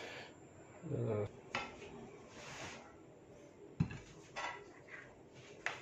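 Clatter of serving: a ladle and dishes knocking and clinking against a pan and plate, as a few separate knocks. The sharpest knock comes about four seconds in.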